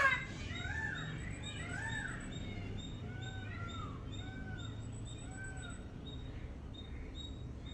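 Birds calling: a series of short, arched, mewing calls, each rising then falling in pitch, growing fainter over the first five seconds or so. Under them runs a steady chirping of short high notes, about two a second.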